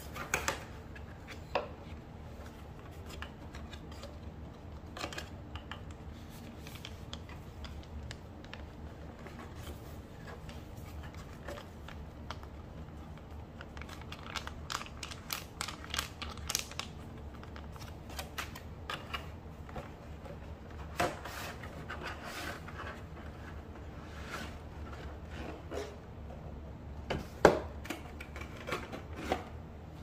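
Cosmetics packaging handled by hand: scattered taps, rustles and crinkles of a cardboard box, a paper sheet-mask sachet and a plastic tray, over a low steady hum. A sharp knock stands out near the end.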